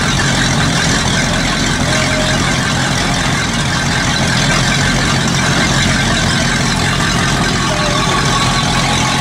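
A Four Winns boat's sterndrive engine running steadily out of the water on stands, its cooling water fed by a hose straight to the engine to bypass the impeller, with water splashing out at the drive.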